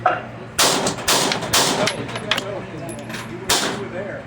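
9mm Gen 5 Glock 26 pistol firing: a string of sharp gunshots, about half a dozen, irregularly spaced, with the loudest at the very start.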